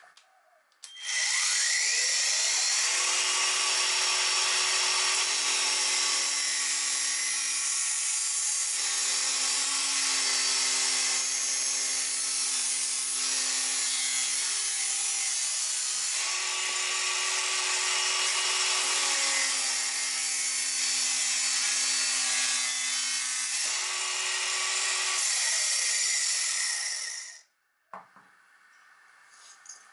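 Angle grinder with a thin cut-off disc spinning up and cutting through the plastic case of an R/C servo. The whine shifts in pitch a few times under load, and the grinder stops shortly before the end.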